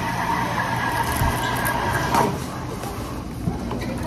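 A steady machine hiss with a held whine that falls in pitch and stops about two seconds in, leaving quieter background noise.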